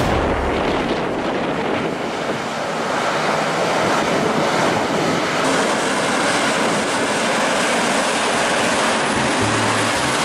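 Steady rushing noise of heavy-haul trucks towing oversize loads driving past, with no clear engine note.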